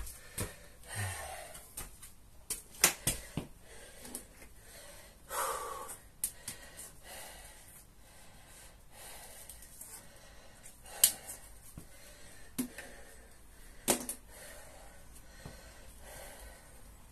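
A man breathing heavily as he recovers between sets of kettlebell swings, with a few long breaths and several sharp clicks in between.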